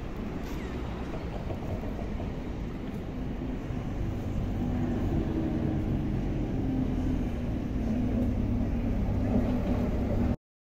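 Traffic rumble on a city street with tram tracks, with a nearby vehicle's engine hum coming in about halfway and growing louder; the sound cuts off suddenly near the end.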